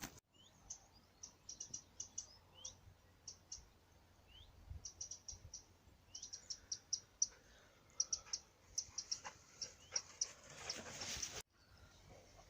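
Songbirds chirping: quick runs of short, high notes and a few brief down-slurred calls. A short burst of rustling noise comes just before the sound cuts off suddenly about eleven seconds in; fainter birdsong follows.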